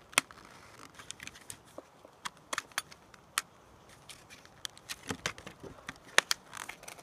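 Irregular sharp clicks and crinkles of a plastic-and-card blister pack being handled, the packaging of a DMT credit-card-size diamond whetstone.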